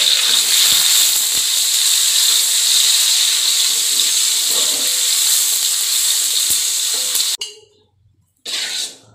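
Ingredients sizzling loudly in hot oil in a wok as they are stir-fried, with a metal spatula scraping and clinking against the wok. The sizzle cuts off suddenly about seven seconds in.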